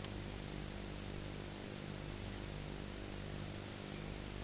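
Steady hiss with a low electrical hum underneath and no distinct event: the soundtrack's background noise.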